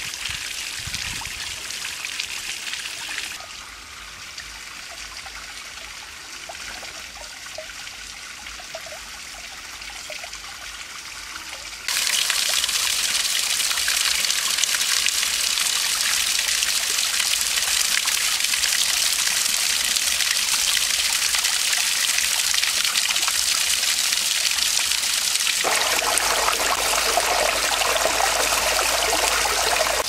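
Water trickling and splashing steadily into a small pond. It is quieter a few seconds in and becomes abruptly louder and brighter about twelve seconds in.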